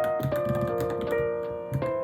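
Typing on a Varmilo Minilo mechanical keyboard: quick keystroke clicks, several a second, over background piano music.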